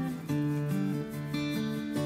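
Background music: an acoustic guitar playing plucked notes that change every half second or so.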